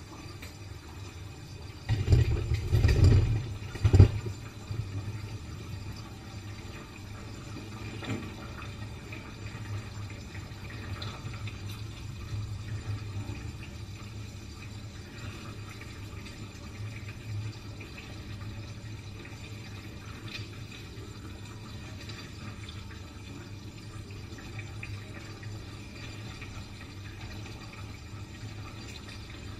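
Yellow chicken curry simmering and bubbling in a frying pan on a gas burner, stirred now and then with a silicone spatula. A burst of heavy low thumps comes about two to four seconds in.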